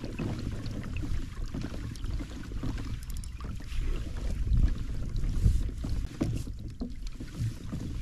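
Wind buffeting the microphone in uneven gusts on an open kayak, with a few small knocks and clicks of gear handling.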